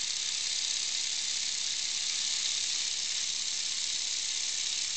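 Piston-valve model steam engine running on compressed air, giving a steady high hiss of exhaust air and of air leaking from its joints, which have no sealant.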